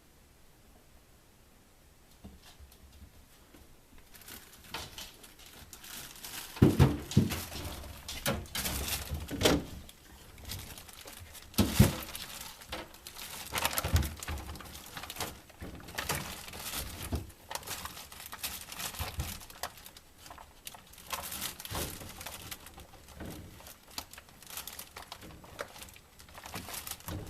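A puppy rummaging inside a refrigerator: plastic bags rustling and food and containers being knocked about, in irregular bursts with sharp knocks, starting about four seconds in and loudest around seven and twelve seconds in.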